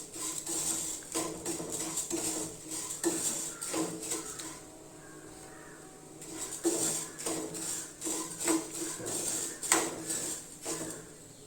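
Spoon stirring and scraping flattened rice (aval) in a pan as it roasts in ghee, with repeated scrapes and clinks against the pan and a short pause near the middle.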